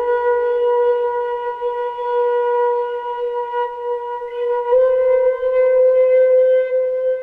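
Slow flute music with long held notes. One note is held for about four and a half seconds, then a slightly higher note is held to the end.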